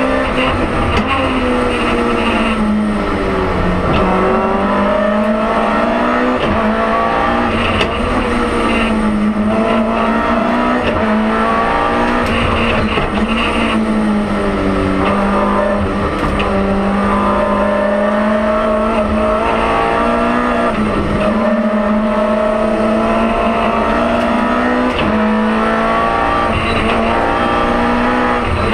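BMW M3 E30 Group A rally car's four-cylinder engine heard from inside the cabin, revving hard and falling away over and over as the car accelerates, shifts gear and slows for corners.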